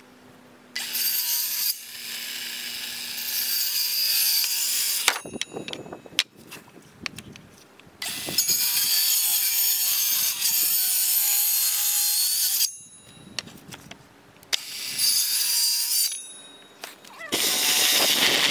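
Cordless circular saw cutting through pine 2x4 boards in separate cuts: one starting about a second in and lasting about four seconds, a longer one of about four and a half seconds, then a short run, with knocks of wood between cuts. Near the end a cordless drill runs briefly into the wood.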